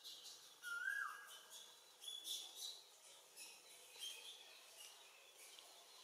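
Faint bird calls: quick high chirps throughout, with one short whistled note about a second in that ends in a falling slide.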